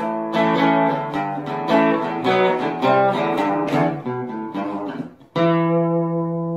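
Acoustic guitar music: a run of picked notes and strummed chords, then one final chord struck about five seconds in and left to ring out, slowly fading.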